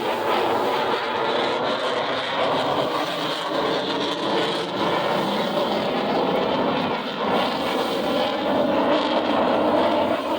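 Steady jet noise from a Lockheed Martin F-35 Lightning II in flight, its single turbofan engine producing an even roar that holds at about the same level.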